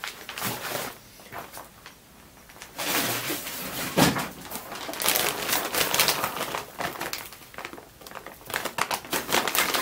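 Clear plastic bag crinkling and rustling as it is dug out and handled, with a single sharp knock about four seconds in.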